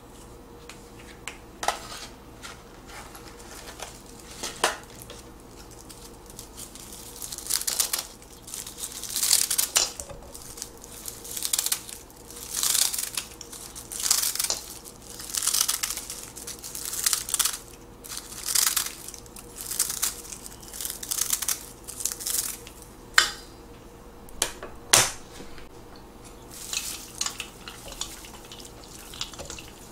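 Kitchen scissors snipping sheets of dried laver (gim) over a stainless steel bowl: a dozen or so crisp, crunchy snips about every second and a half, with a few sharp clinks of metal on the bowl. Near the end, chopsticks stir the noodles in the bowl.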